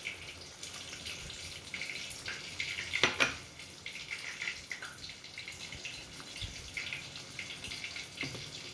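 Sardine and chayote sauce simmering in a frying pan, with a steady crackle of small bubbles popping. There is a brief louder clatter about three seconds in.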